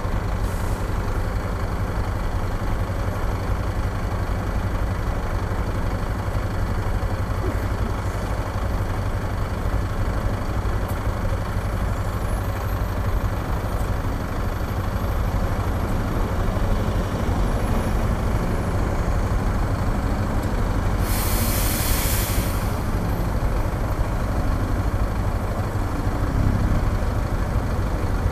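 Yamaha XTZ 250's single-cylinder engine idling steadily at a stop, with city traffic around it. About 21 seconds in, a loud hiss of air brakes from a heavy vehicle lasts about a second and a half.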